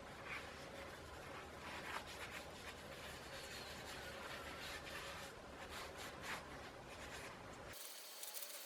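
Faint, irregular rubbing and scratching strokes of hand scrubbing, as rust and grime are cleaned off saw parts.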